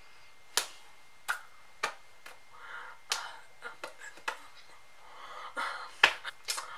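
A person's hands making sharp snaps and slaps, about a dozen at an uneven pace, with soft breathy hiss between some of them.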